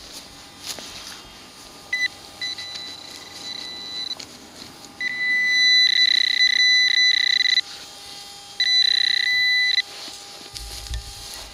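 Handheld metal-detecting pinpointer buzzing with a steady high tone as it is worked in the dug hole, signalling metal close by: short blips about two seconds in, then two long, louder buzzes of about two and a half seconds and one second.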